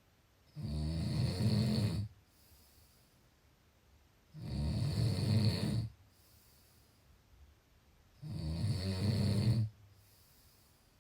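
Snoring in a steady rhythm: three long, rattling snores, each about a second and a half, coming about every four seconds with quiet breathing between them.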